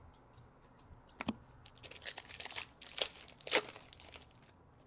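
Hockey card pack wrapper being torn open and crinkled by hand: a click about a second in, then a run of sharp crinkling rips that dies away near the end.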